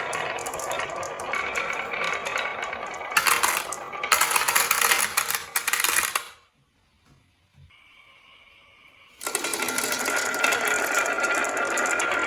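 Marbles rolling and clacking down a marble run, a dense rattling clatter that grows louder about three seconds in. It drops almost to silence about six seconds in and starts again about three seconds later.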